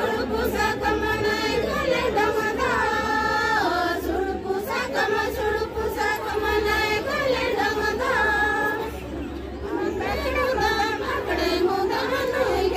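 A group of women singing a Santali Baha song together in unison, with long held notes that slide down between phrases.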